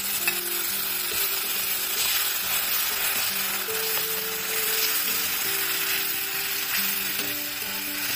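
Tomato paste sizzling steadily in hot oil and fried spices in a kadhai as it is stirred with a metal slotted spoon.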